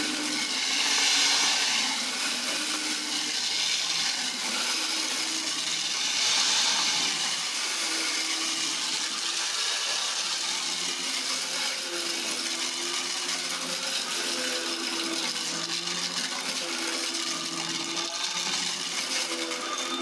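Dirt Devil bagless upright vacuum cleaner running on carpet, pushed back and forth as it sucks up scattered debris. It makes a steady whir with a high rushing hiss and a motor hum that wavers slightly in pitch. The rush swells louder about a second in and again about six seconds in.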